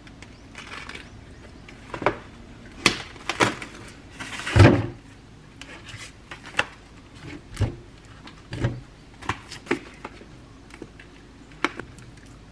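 Kitchen handling sounds: raw webfoot octopus being unwrapped from its plastic supermarket tray and tipped into a plastic colander in a stainless steel sink. Scattered clicks and knocks, with a louder rustling clatter about four and a half seconds in.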